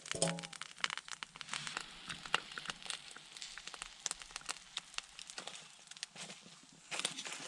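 Campfire crackling, with irregular snaps and pops of burning wood. A brief pitched sound comes right at the start.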